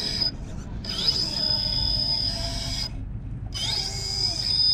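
RC rock crawler's electric motor and geared drivetrain whining as it creeps up a rock face under throttle. The whine stops twice when the throttle is let off and rises in pitch each time the motor spins up again.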